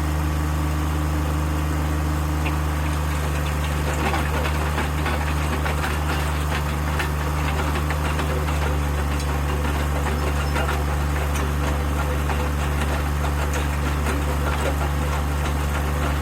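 Engine running steadily at an even speed. About four seconds in, a rougher crackling noise joins it.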